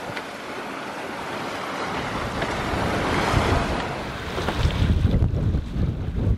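Sea water rushing around a sailing yacht under way, with wind buffeting the microphone; the wind rumble grows heavier and gustier from a little past the middle.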